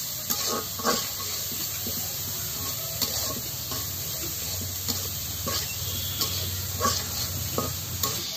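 Oil sizzling steadily in a karahi (wok) as a spatula stirs and scrapes the frying food, with irregular clicks of the spatula against the pan.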